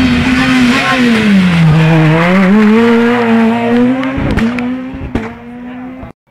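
Rally car engine passing close and loud: the revs fall as it slows for a hairpin bend, then climb again as it accelerates out of the corner and away. The sound fades, then cuts off abruptly near the end.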